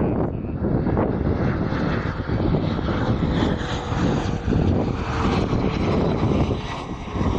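Jet engines of a Boeing 747 freighter on the ground: a continuous rumble with a faint steady whine.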